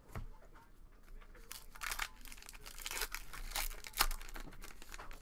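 A trading card pack's wrapper being torn open and peeled back by hand: a run of crinkling and tearing rustles that builds about a second and a half in, with the sharpest crackle about four seconds in.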